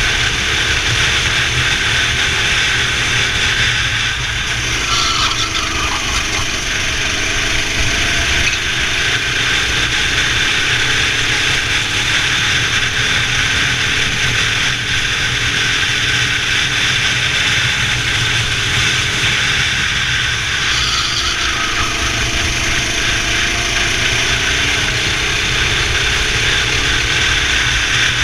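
Racing kart engine running at speed, loud and continuous. Its pitch dips and climbs again twice, about four seconds in and again about twenty seconds in, as the throttle comes off and back on.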